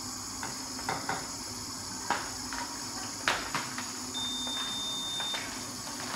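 Scattered light clinks and clacks of hand packing work (a spoon against a bowl, pouches handled, a hand impulse sealer's arm pressed down) over a steady background hum. A thin high beep about four seconds in lasts just over a second.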